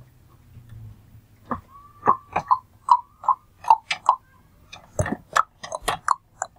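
A quick, irregular run of short, sharp clicks and taps, about fifteen of them, starting about a second and a half in.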